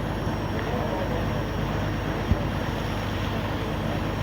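Boat engine running steadily with a low, even drone. There is a single short knock a little over two seconds in.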